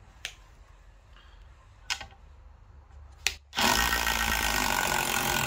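A few light clicks, then about three and a half seconds in a cordless Parkside Performance PDSSAP 20-Li B2 impact driver starts suddenly and runs loud and steady, driving a long 110 x 6 mm screw into a wooden beam.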